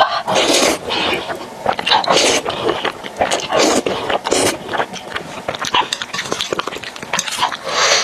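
Close-miked noodle slurping and chewing: about five short hissing slurps as saucy noodles are sucked in, with wet chewing and mouth clicks between them.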